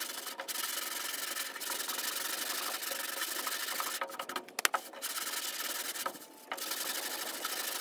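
Hand-sanding cured body filler (Bondo) on a steel VW Bus door with a sanding block: a steady scratchy rasp with a few short breaks between runs of strokes, and a few sharp clicks about four and a half seconds in.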